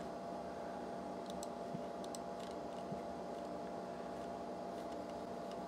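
A few faint computer mouse clicks over a steady machine hum.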